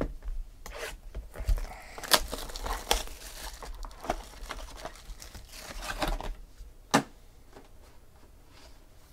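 Trading-card pack wrapper being torn open and handled: irregular plastic tearing and crinkling.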